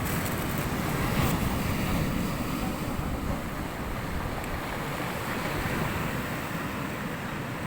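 Steady rushing noise of wind buffeting the microphone, mixed with the wash of water.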